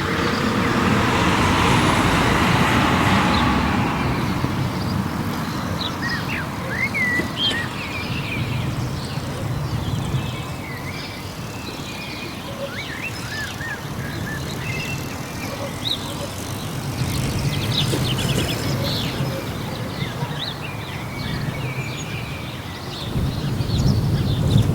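Village street ambience: a vehicle passes in the first few seconds, then small birds chirp repeatedly over a steady low rumble of distant traffic, and another vehicle comes closer near the end.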